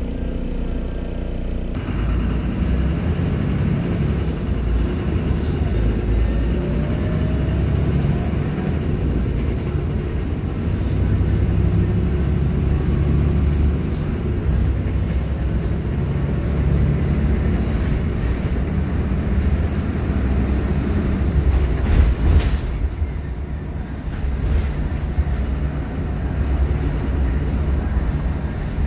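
Cabin sound of a Volvo B7RLE single-deck bus on the move: its rear-mounted six-cylinder diesel engine and road noise. The engine note changes as the bus pulls away and accelerates, and there is a brief knock about three-quarters of the way through.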